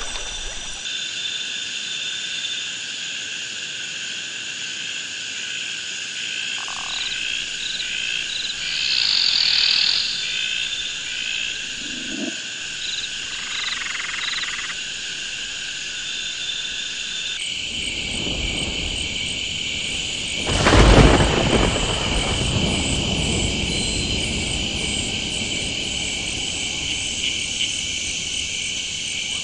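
Tropical rainforest chorus of insects and frogs at night. Steady high trilling runs under repeated chirping calls, and a denser, louder insect chorus comes in about two-thirds of the way through. A short low rumble sounds about 21 s in.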